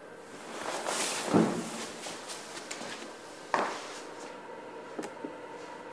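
Edited cinematic sound effects: a rising whoosh that ends in a low thump about a second and a half in, then a sharp knock that dies away a couple of seconds later, over a faint held tone.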